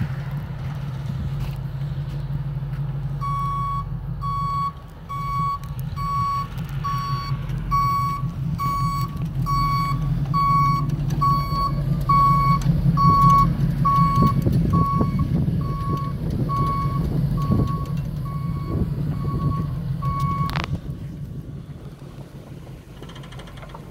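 Truck backup alarm beeping steadily, a little over once a second, starting a few seconds in and stopping near the end. Under it a heavy plow truck's engine runs with a low rumble.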